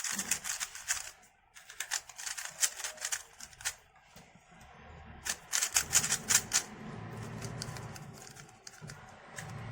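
MoYu RS3M 2020 magnetic 3x3 speedcube being turned by hand. Three spells of rapid clicking as the layers snap past their magnets.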